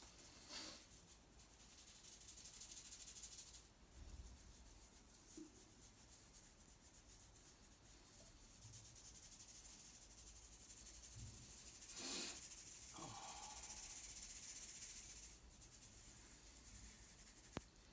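Faint rubbing of hands over skin in a massage, a soft friction hiss in two long stretches, with a stronger swish about two-thirds of the way through and a single light click near the end.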